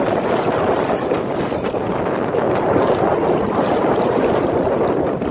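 Steady rush of wind across the microphone mixed with choppy lake water splashing against the hull of a Hobie Outback pedal kayak.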